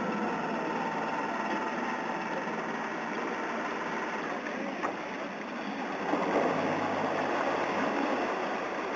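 Outboard motor of a small wooden ferry boat running steadily as the boat pulls away from the landing, a little louder about six seconds in.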